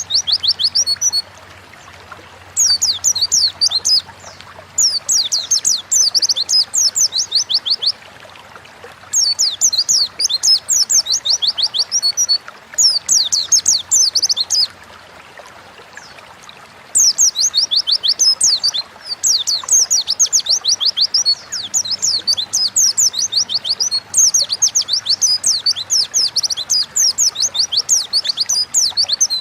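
White-eye (pleci) singing: phrases of rapid, high twittering notes, each note a quick downward sweep, repeated phrase after phrase with short pauses between them.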